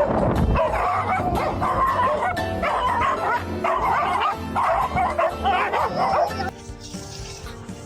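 A dog barking and yipping in a run of wavering calls over background music, stopping about six and a half seconds in.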